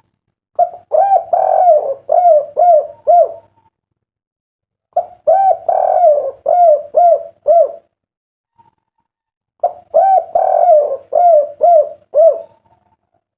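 Spotted dove (derkuku) cooing: three song phrases about four and a half seconds apart, each a drawn-out opening coo followed by a run of short, separate coos.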